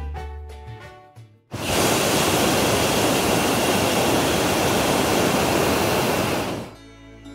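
Hot-air balloon propane burner firing: a loud, steady roaring hiss that starts abruptly about a second and a half in, runs for about five seconds, then shuts off.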